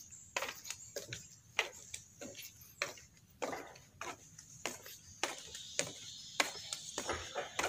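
Footsteps on wooden boardwalk planks, a steady walking pace of about two steps a second.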